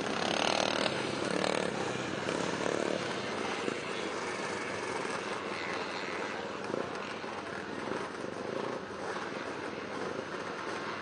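Engines of several vintage motocross bikes running around a dirt track together, blending into one buzzing drone of many motorcycles. It swells a little in the first few seconds, then holds steady.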